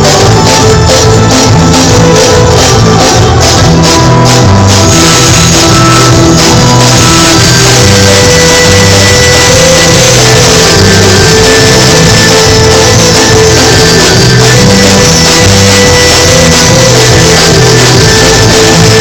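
Loud music with a steady beat and a stepping bass line. A sharp, evenly spaced percussion pattern is clear until about five seconds in, then blends into a denser, steadier sound.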